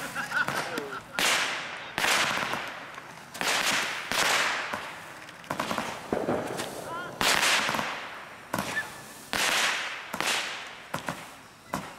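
Consumer aerial fireworks firing one after another, about ten sharp bangs at intervals of roughly a second, each fading out over about a second.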